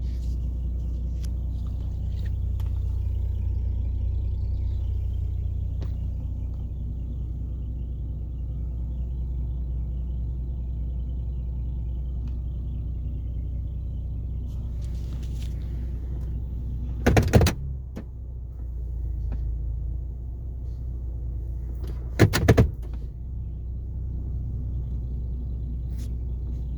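Hyundai Genesis Coupe 3.8 V6 running with a steady low rumble, which the owner calls a weird bubbly sound coming from the passenger side and cannot explain. Two short loud noises come about 17 and 22 seconds in.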